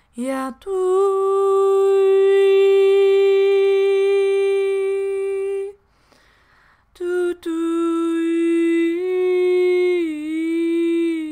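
A woman's voice toning light language without words: one long held note, a short break, then a second long note that steps up and then dips slightly.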